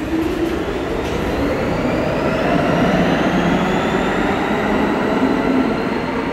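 R46 subway train accelerating away on the far track, its traction motors whining and rising steadily in pitch over the rumble of the wheels on the rails, echoing around the underground station.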